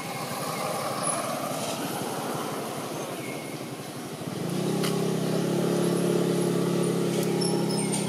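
A motor vehicle's engine: a rumble of traffic at first, then from about halfway a louder, steady engine note running close by.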